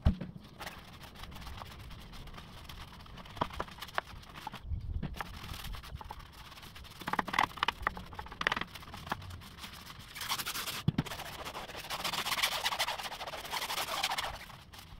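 Scrubbing a soapy aluminium truck wheel by hand with a brush and sponge: bristles scratching against the metal rim in irregular strokes, with sharp clicks and knocks of the brush against the wheel, and a longer, denser stretch of scrubbing about ten seconds in.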